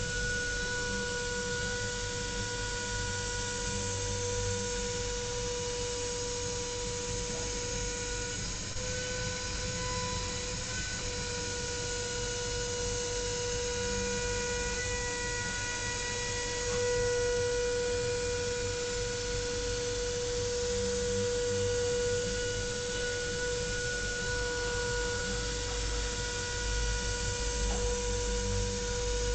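CNC machine spindle running with a steady whine and overtones while it mills 10 mm aluminium, over a continuous rumble of machine noise; the pitch wavers briefly about nine to eleven seconds in.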